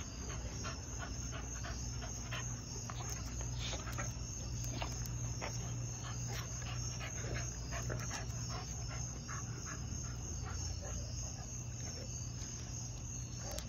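An American Bully and a mastiff play fighting, mouthing and scuffling with many short clicks throughout, over a steady low hum.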